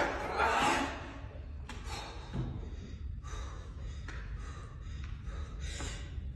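A weightlifter breathing hard in short, sharp breaths while he holds a loaded barbell at his shoulders, bracing between the clean and the jerk. A louder sound fades within the first second, and a low steady hum runs underneath.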